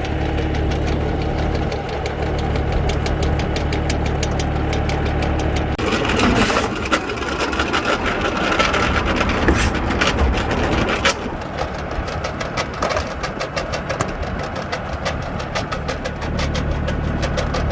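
An engine idling steadily with a fast ticking clatter. About six seconds in it grows louder and rougher for around five seconds, then settles back to a steady idle near the end.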